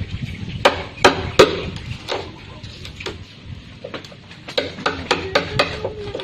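A series of sharp knocks at uneven spacing, like hard blows on a solid object. The three loudest come in the first second and a half, with a quicker run of lighter knocks near the end.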